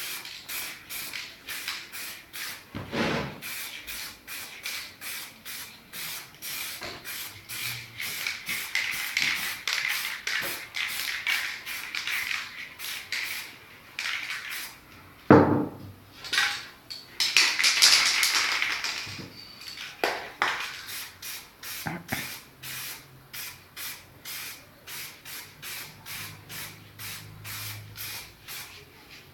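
Aerosol spray paint can hissing in quick short bursts, about three a second, with one longer hiss a little past halfway. A few knocks break in, the loudest about halfway through.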